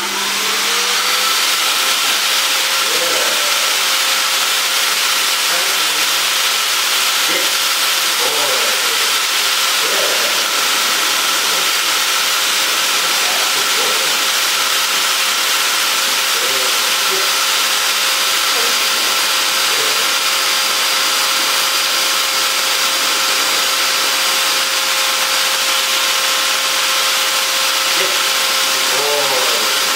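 Pet blower (high-velocity dog coat dryer) running on its highest setting. Its motor spins up over about the first second, with a rising whine that then settles. After that it holds a loud, steady rush of air with a constant whine as it blows through the dog's coat.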